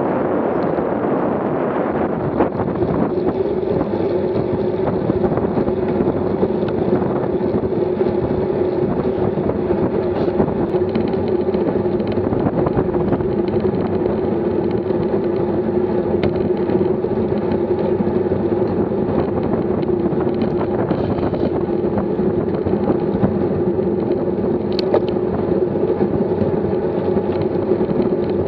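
Wind rushing over the microphone of a camera mounted on a road bike riding at about 20 mph, mixed with a steady rumble of tyres on asphalt.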